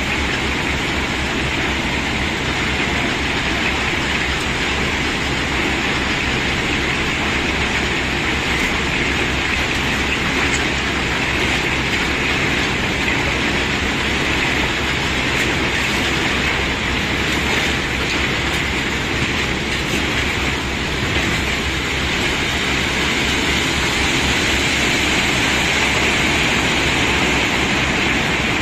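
A load of cobblestones being unloaded: stone on stone in a dense, continuous clatter that runs without a break and swells slightly near the end.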